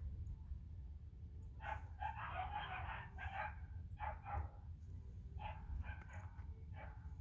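Dogs barking in short runs: a dense string of barks from about a second and a half in, a couple more near the middle, and a few more spaced out near the end, over a steady low rumble.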